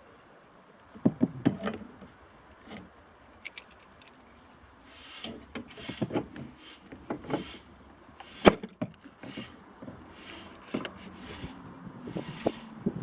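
Hand tools and small metal parts being handled during work on an RV refrigerator's gas burner: irregular clicks, light knocks and short scraping sounds, with one sharper knock about eight and a half seconds in.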